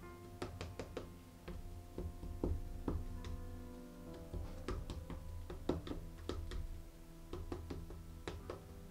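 Quiet background music of held notes, with irregular light clicks and taps of a stir stick against a plastic cup of pouring paint.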